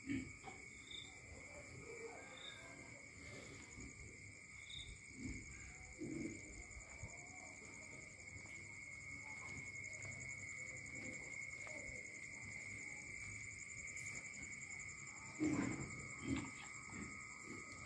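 Crickets trilling steadily in two high, continuous pitches. A few short low thumps and rustles, the loudest about two-thirds of the way through.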